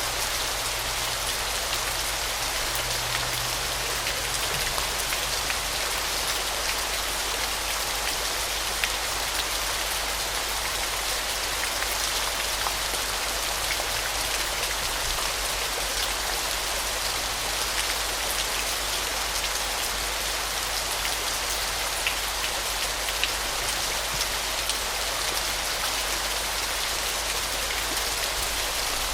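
Falling water: a steady hiss of splashing water with many small droplet ticks, like a waterfall's spray or heavy rain.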